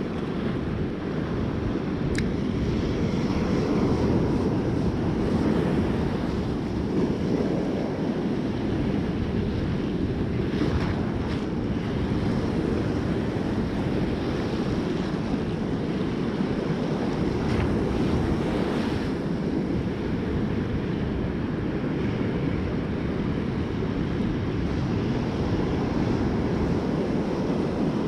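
Rough surf washing up a sandy beach, with wind buffeting the microphone, a steady dense rush throughout. A single sharp click about two seconds in.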